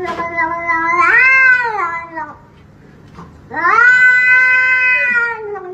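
A cat yowling in two long drawn-out calls. The first swells and arches up then down about a second in, then stops. The second begins a little past the middle and slowly sinks in pitch toward the end.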